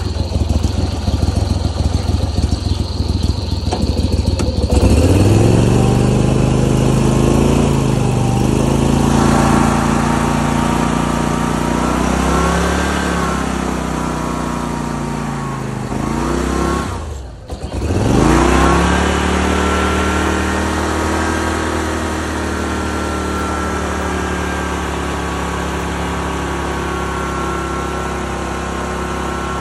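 Go-Devil mud motor idling with a fast ticking run, then throttled up about five seconds in, its pitch rising and falling with the throttle. Near seventeen seconds in it sags almost to nothing, then revs back up and runs steady at a higher speed.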